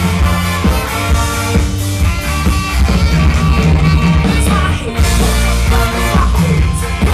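Live rock band playing loudly, with a heavy bass line, drums and guitar.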